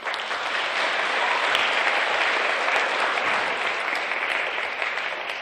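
Audience of schoolchildren and adults applauding in a hall, starting at once and tapering off near the end.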